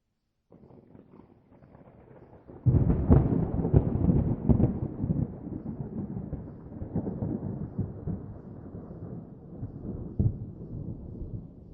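A thunderclap: a faint rumble starts about half a second in, then a sharp crack about two and a half seconds in, followed by crackling and a long rumble that slowly dies away with a few louder swells.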